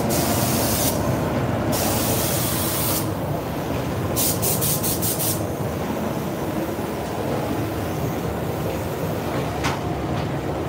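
Compressed-air paint spray gun hissing in bursts: two trigger pulls of about a second each, then a rapid string of short pulses around four to five seconds in. Beneath it runs the steady low rumble of the paint booth's air extraction.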